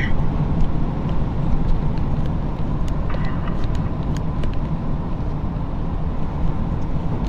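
Steady low road rumble inside a moving SUV's cabin as it drives along.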